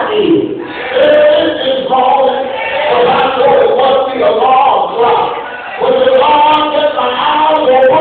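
Church singing: a male voice sings chanted phrases with long held notes, each phrase followed by a short break.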